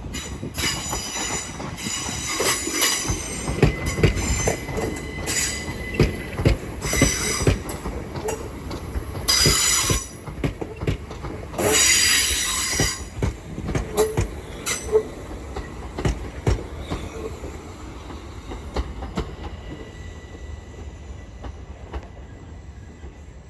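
Southern Class 387 electric multiple unit arriving at a platform. Its wheels squeal in several high-pitched bursts, with sharp clicks of the wheels over rail joints and pointwork, and both die down as it slows.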